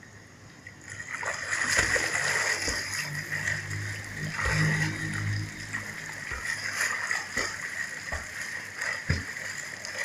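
Water splashing as a beginner swimmer's arms and legs beat the surface of a pool: irregular slaps and sloshing, starting about a second in.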